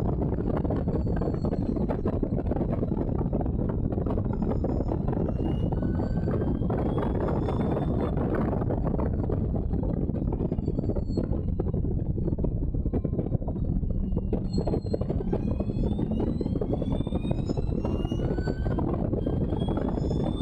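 Allard J2 race car's V8 engine running hard at racing speed, heard from the cockpit. Its note climbs in pitch again and again as the car accelerates.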